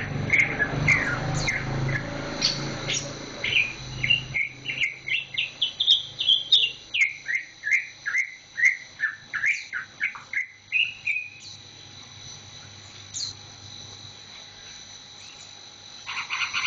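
Cucak ijo (green leafbird) singing: a fast run of short, downward-sweeping chirps for about the first eleven seconds, then a pause and a brief burst of notes near the end.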